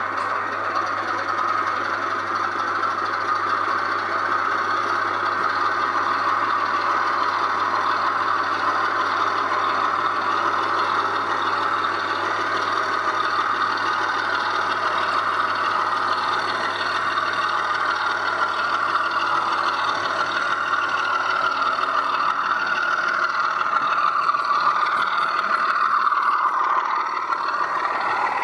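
00 gauge model locomotive running on the layout, its diesel engine sound played through a small onboard speaker, mixed with the model's running noise. A steady low hum is present throughout, and a few rising and falling pitch changes come near the end.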